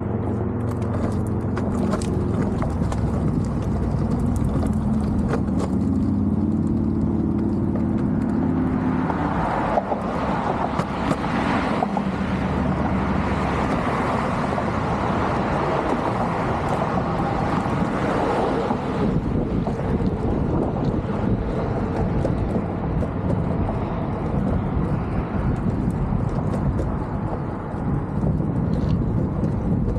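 Longboard wheels rolling steadily over pavement. A low hum runs under it for about the first nine seconds.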